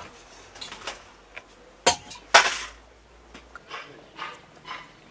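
Steel kitchen utensils clinking: a spoon knocking against a steel plate and bowl, with two sharp clinks about half a second apart a little before halfway, followed by a few softer brief sounds.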